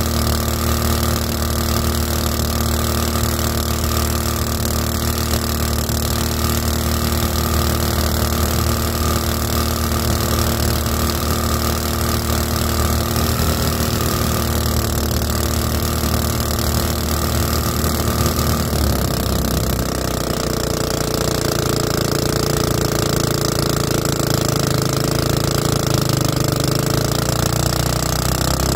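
Small boat motor running steadily as a flat-bottom jon boat travels, with wind and water noise around it. About two-thirds of the way through, its note shifts upward and keeps climbing slightly as the engine speeds up.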